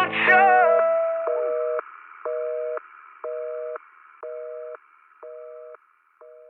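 A song's final note dies away in the first second, then a North American telephone busy signal: a two-tone beep, half a second on and half a second off about once a second, fading out.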